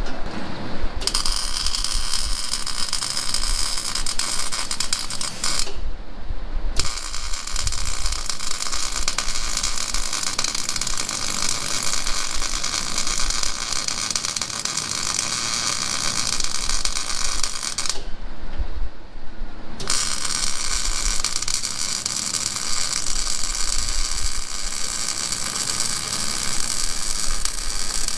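Electric arc welding: a steady crackle of the arc in three runs, breaking off for about a second just under six seconds in and for about two seconds around eighteen seconds in.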